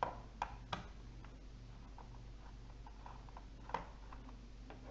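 Small screwdriver working the screws out of a laptop's hard-drive bay cover: a few light clicks and ticks, three close together at the start and one more a little after three and a half seconds.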